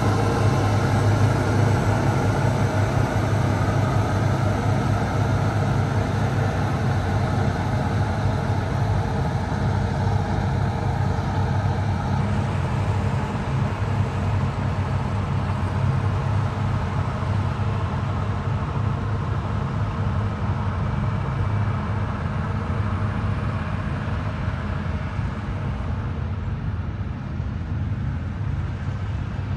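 Caterpillar 140M motor grader's diesel engine running steadily under load with a deep low hum, gradually getting quieter.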